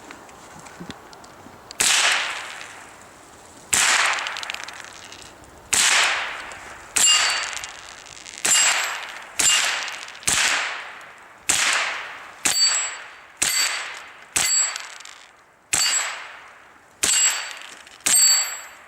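Single .22 LR shots from a Walther/HK G36 rimfire rifle, about fourteen in all, each with a long echoing tail. The first three come about two seconds apart, then the pace picks up to roughly one a second. From about seven seconds in, most shots are followed by a metallic ring.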